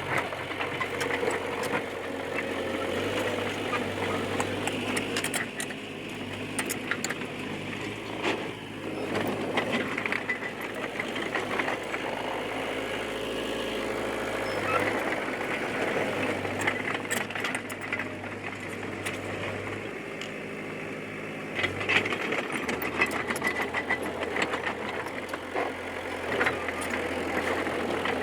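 D20P bulldozer's diesel engine running steadily while the machine works, with frequent metallic clanks from the tracks and a few held squeals.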